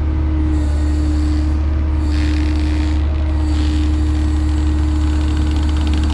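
Vehicle engine running steadily: a deep, constant hum with a steady tone over it and a few short hisses.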